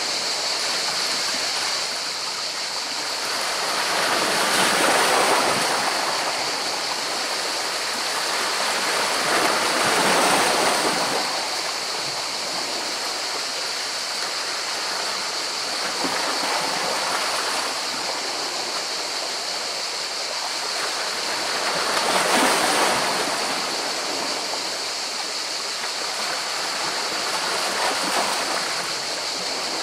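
Sea water washing in over rocks: a steady rushing wash, with a wave surging up and falling back every several seconds, loudest about 5, 10 and 22 seconds in.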